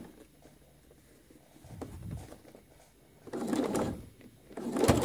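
Domestic sewing machine topstitching a few stitches at a time: a faint short run about two seconds in, then two louder short runs near the end, with quiet pauses between.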